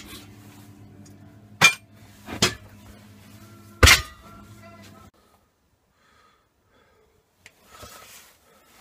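Three sharp metallic clinks of metal knocking on metal, the third the loudest, over a steady low hum; the sound cuts off about five seconds in, and a faint rustle follows near the end.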